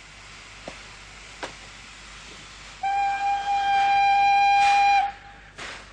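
A train whistle blows one long steady note for about two seconds, starting about three seconds in: the departure signal that the train is ready to go.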